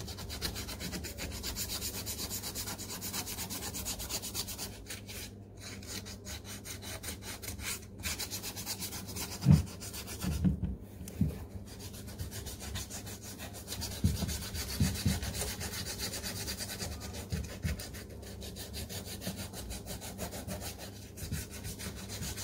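Sandpaper rubbed lightly back and forth by hand over the leather upper of a Nike SF Air Force 1 sneaker, scuffing the surface to prepare it for paint. A few louder low knocks come about ten seconds in and again around fourteen seconds.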